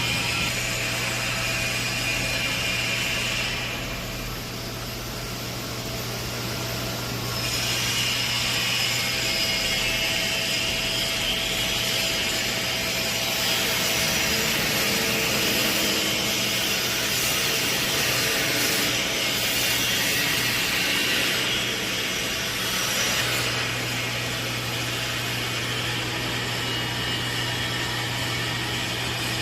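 Plasma keyhole welding of 12 mm stainless steel: a steady hissing arc over a constant low hum, the hiss dropping away for a few seconds near the start before returning.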